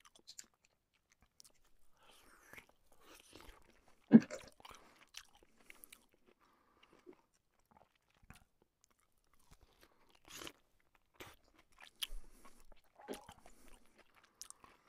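Eating sounds: fried luchi bread being torn and chewed, with scattered crackles and one louder crunch about four seconds in.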